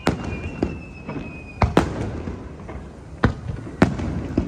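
Aerial firework shells bursting overhead: several sharp bangs at irregular intervals, with a thin high whistle that runs through the first second and a half and then stops.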